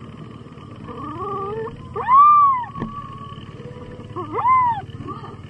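Very young puppy crying in high whines: a short rising whine about a second in, then two louder cries that rise and fall in pitch, the loudest near the middle and another near the end. A single sharp click follows the loudest cry.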